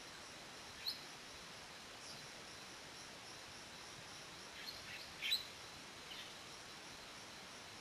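A few short high bird chirps: single ones about one and two seconds in, a quick cluster around five seconds that is the loudest, and one more near six seconds. Under them runs a faint steady insect drone and background hiss.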